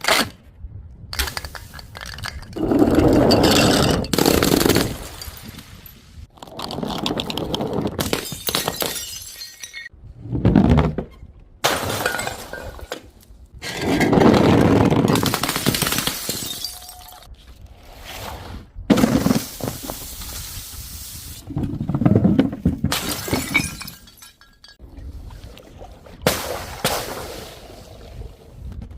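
Glass bottles and jars shattering one after another, about ten separate crashes with short pauses between them. Some of the crashes are brief, while others run on for a couple of seconds.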